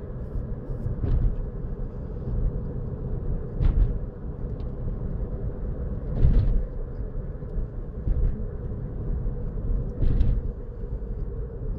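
Steady low road rumble inside a moving car's cabin, with a faint steady hum and a few brief thumps over it.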